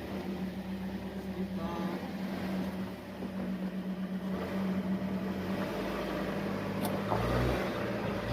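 Car engine running with a steady low hum; a deeper rumble joins about seven seconds in.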